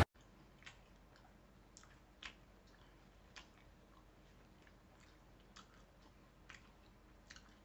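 Faint, irregular crackles and mouth clicks of someone chewing crunchy Blue Heat Takis-coated fried chicken, about a dozen small crunches spread unevenly.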